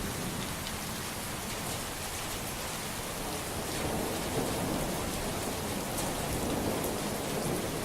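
Heavy rain pouring steadily, with a low rumble of thunder swelling in the second half.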